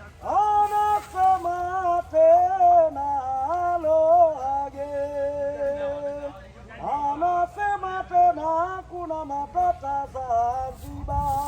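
A man singing a Swahili song, a single voice holding notes and moving in phrases.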